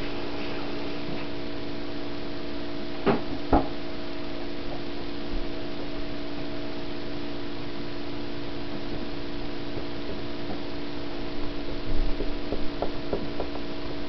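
Steady low electrical hum, with two sharp knocks on the tabletop about three seconds in and a run of light taps and scrapes near the end as a crayon works on poster board.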